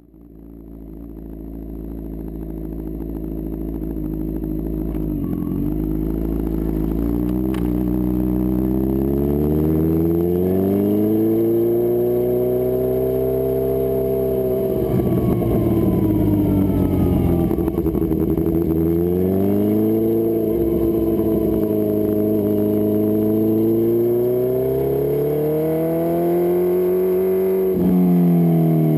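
2010 Kawasaki Z1000 inline-four with Arrow collectors and an M4 slip-on exhaust, running under way. The engine pitch climbs and falls several times, with the exhaust crackling as the revs drop. The sound grows louder over the first several seconds.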